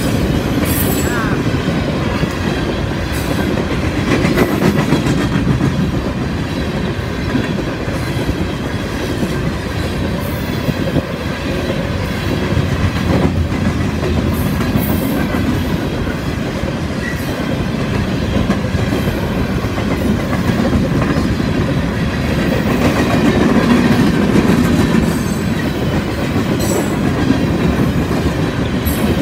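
Freight train of covered hopper cars rolling past at close range: a steady rumble of steel wheels on rail, with scattered sharp clicks as the wheels pass over the track.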